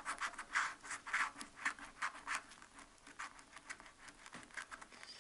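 Scratching the coating off an FDJ Cash scratch card: quick rasping strokes, about four or five a second, growing fainter after the first half.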